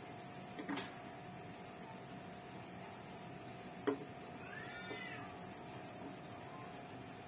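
A cat meows once, a single rising-then-falling call about five seconds in, over a steady hum. Two sharp clicks, the louder just before four seconds in, come from the hand working among the stones in the tank.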